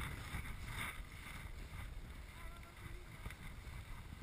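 Wind rushing over the microphone and skis hissing through powder snow on a downhill run, a steady noise throughout.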